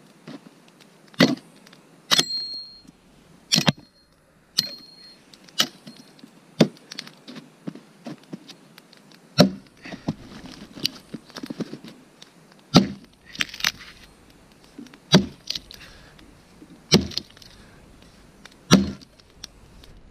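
Axe chopping through a dry fallen birch trunk: about a dozen sharp blows spaced a second or two apart, a couple of them leaving a brief high ring.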